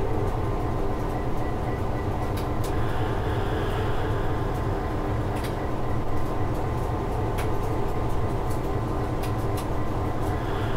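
A diesel freight locomotive's cab while running at speed: a steady engine and running rumble, with scattered sharp clicks over it.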